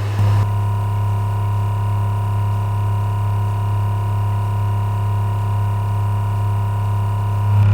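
Thermoacoustic Stirling engine with a balloon-rubber membrane power unit running, giving off a steady low hum with overtones and a fainter higher tone over it. Near the end the higher tone drops out and the hum gets a little louder.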